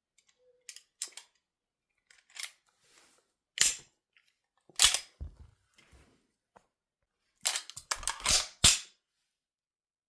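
Gun reloading handling: a series of sharp mechanical clicks and clacks of magazine and action being worked. Loud single clacks come about a third and half of the way in, and a quick cluster of clacks comes near the end.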